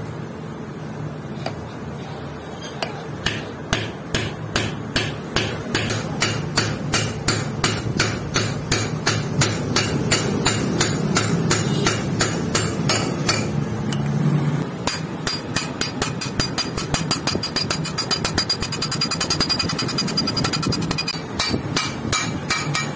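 Hammer blows on a steel drift tube, driving a ball bearing down onto a motorcycle crankshaft's shaft: a steady series of sharp metallic strikes, about two to three a second, that quicken into rapid lighter taps in the second half as the bearing seats.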